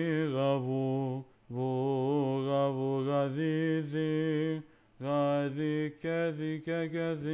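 Solo male voice chanting a Byzantine second-mode melody on the note names (parallagi), in long held notes with small wavering turns and short breaks between phrases.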